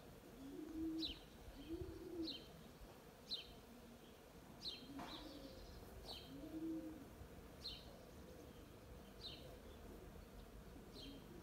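A dove cooing in a series of low, soft arched notes, most of them in the first half. Over it a small songbird repeats a short, high, falling chirp about once a second.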